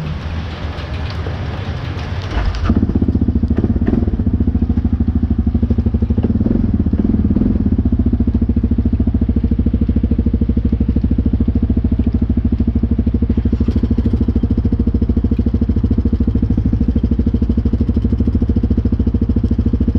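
ATV engine idling steadily close by; about three seconds in it becomes louder and stronger, then holds a steady even beat.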